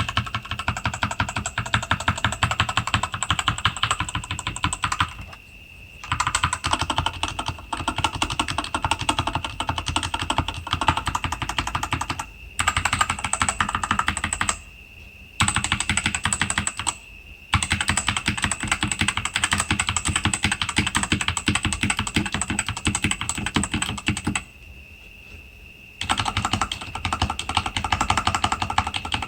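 Rexus Daiva RX-D68 mechanical keyboard with Outemu red linear switches being typed on quickly: a dense run of key clicks broken by a few short pauses, the longest about a second and a half near the end.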